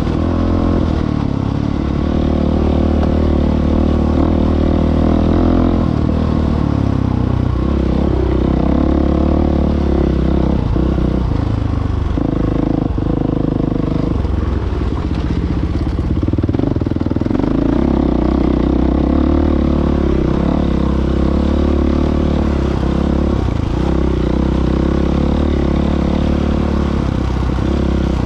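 Off-road trail motorcycle's engine running hard while riding a rough dirt track, its pitch dropping and rising several times with throttle and gear changes.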